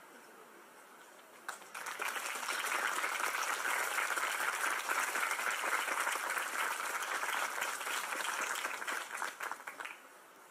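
Audience applauding: the clapping starts about a second and a half in, holds steady, and dies away shortly before the end.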